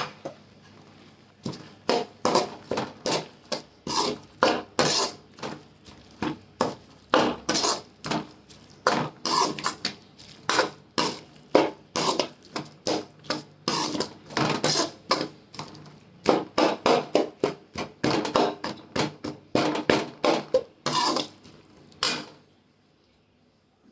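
A cooking spoon clanking and scraping against a pan while stirring and frying a tamarind, jaggery and coconut mixture: a quick, uneven series of metallic knocks, about two to three a second, that stops shortly before the end.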